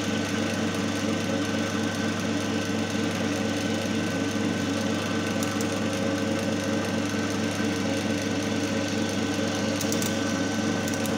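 Single-phase capacitor-run induction motor and its coupled load machine running steadily under load at about 1445 rpm, giving a constant electrical hum with a mechanical whir.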